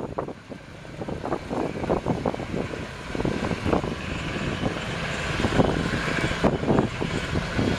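1988 GMC High Sierra flatbed truck's 366 cubic-inch V8 gas engine running as the truck moves slowly, with an uneven, fluctuating level.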